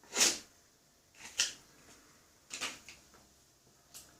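Four short scraping handling sounds, about a second and a quarter apart, the last one brief and fainter.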